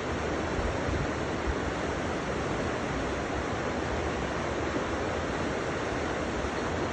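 River water rushing steadily, an even, unbroken wash of sound.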